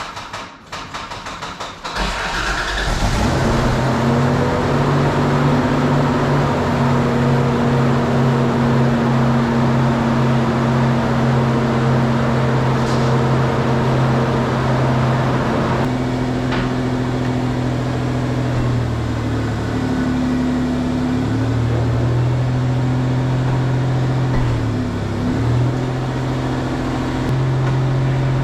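Toyota pickup's engine cranked by the starter for about two seconds, then catching and running steadily, its pitch dipping and rising a few times later on.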